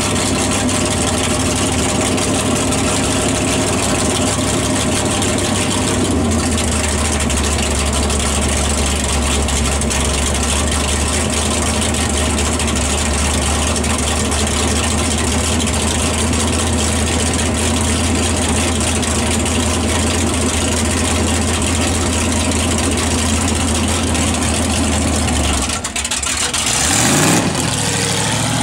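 Studebaker coupe land-speed racer's engine idling steadily with a low, even tone. Near the end it drops briefly, then its revs climb as the car launches and accelerates away from the start line.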